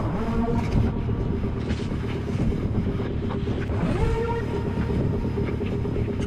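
Bicycle riding over a dirt forest trail: continuous tyre and wind rumble on the camera mic, with a steady buzzing tone that rises in pitch at the start and again about four seconds in.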